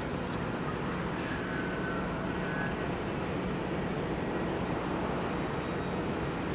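Steady low drone of distant marine engines, a tugboat working a large ship, with a faint even hum underneath.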